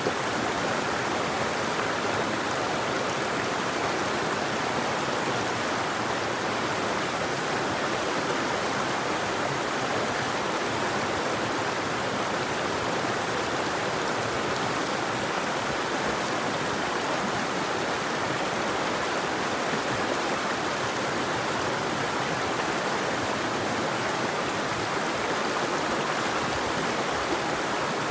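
River water flowing over rocks, a steady rushing and babbling with no birds.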